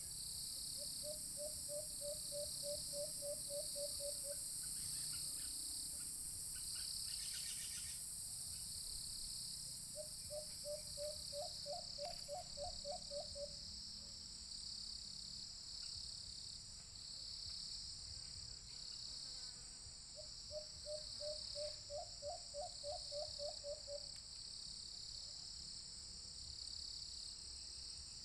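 White-eared brown dove calling: three bouts of about a dozen quick hooting notes each, roughly ten seconds apart. Under them runs a steady high buzz of insects, loudest in the first ten seconds.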